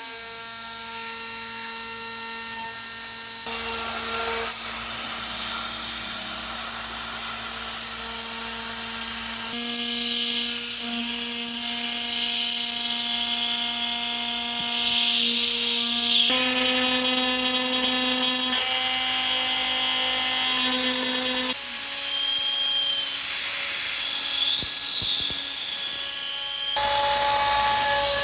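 CNC router spindle milling aluminum plate with an end mill: a steady high whine over a hissing cutting noise. The tone changes abruptly every few seconds.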